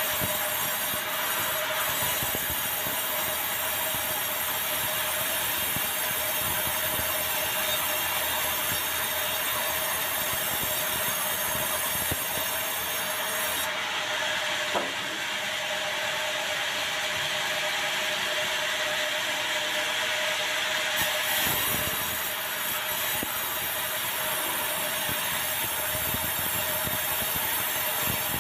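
Sawmill band saw running through a large log of dry, very hard bengkirai (yellow balau) timber: a steady hiss with a constant tone. The highest part of the hiss drops away for several seconds about halfway through.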